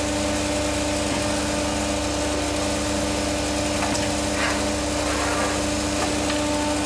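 Vertical plastic injection moulding machine running: a steady machine hum with a few faint clicks and brief hisses about four to five seconds in.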